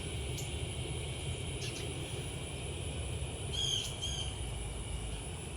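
Outdoor ambience: a steady low rumble and a steady high insect drone. A few faint bird chirps run through it, with two short, clearer bird calls about three and a half seconds in.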